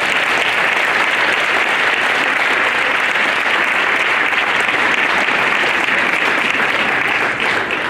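Audience of parents and children applauding, steady and loud, then fading away near the end.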